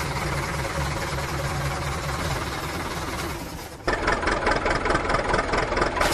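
Vehicle engine running steadily, then an abrupt switch about four seconds in to a louder, rougher engine sound with a fast, even chugging rhythm.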